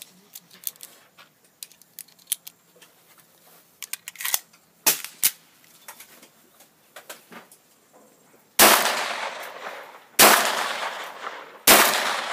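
Ekol Firat Compact traumatic pistol fired three times, about a second and a half apart. Each shot is loud and sharp with a trailing echo, from cartridges that had been soaked in water and fire normally. Before the shots come light clicks of cartridges and magazine being handled.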